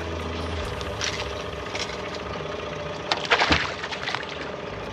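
Small boat's outboard motor running steadily at trolling speed, with a few brief knocks, the loudest cluster about three and a half seconds in.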